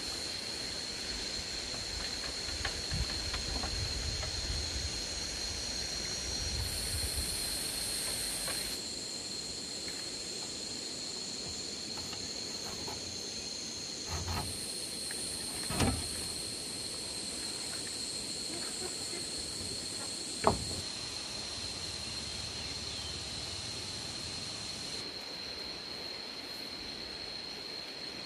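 Forest ambience: a steady high-pitched insect drone over a soft wash of flowing river water, with a couple of short knocks partway through.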